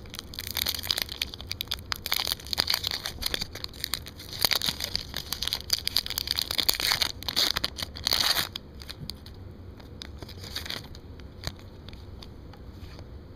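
Foil trading-card pack wrapper being torn open and crinkled in the hands, crackling steadily, then stopping suddenly about eight and a half seconds in.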